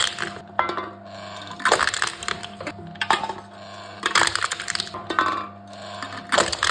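Aluminium drink cans being crushed one after another by a can-crushing machine: a crunching crackle of folding metal roughly every one to one and a half seconds, over the machine's steady hum.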